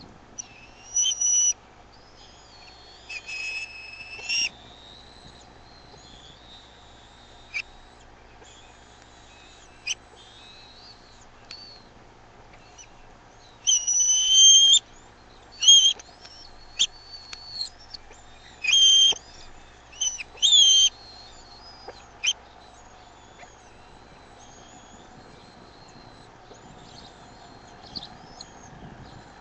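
Bald eagles at the nest calling in short groups of high, thin whistled squeals and chitters, the loudest bursts around the middle of the stretch.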